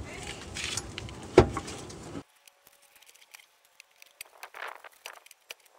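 Handling noise from a manual transmission being worked into place under a GMC Sonoma pickup: one sharp metal clunk over a noisy background. About two seconds in the sound cuts off abruptly, leaving faint scattered clicks and taps.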